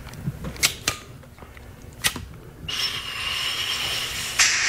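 A handheld lighter struck three times with sharp clicks. Then comes a long, hissing draw through a small glass pipe with a faint whistle in it, which starts just past halfway and gets louder near the end.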